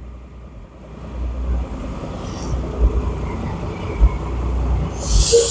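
A motor vehicle's engine rumbling, growing louder from about a second in, with a loud burst of hiss near the end.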